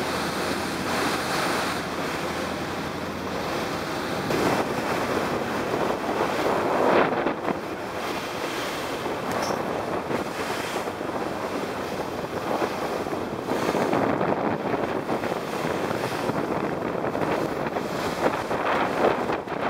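Wind buffeting the microphone over the rush and splash of choppy sea water, swelling louder every few seconds with gusts and waves.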